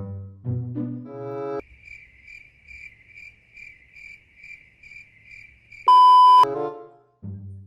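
Background music cuts out and crickets chirp in an even, pulsing rhythm about twice a second, the stock 'awkward silence' comedy effect. A short, very loud beep cuts in near the end, and then the music returns.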